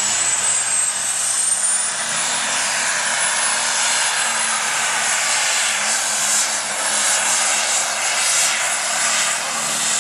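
Heavy super stock pulling tractor's turbocharged engine running flat out under load on a pull, loud and steady. A high turbo whistle climbs in pitch over the first two seconds, then holds.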